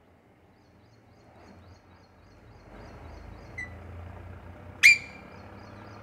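Alexandrine parakeet giving one short, loud call about five seconds in, after a faint short chirp a second or so before, over a low steady background rumble.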